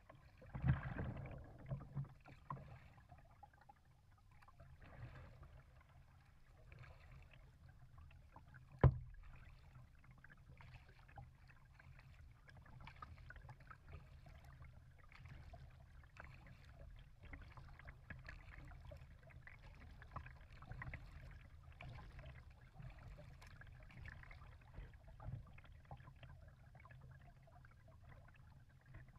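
Faint water lapping and dripping around a kayak's hull over a low, steady rumble, with a few small splashes near the start and one sharp knock about nine seconds in.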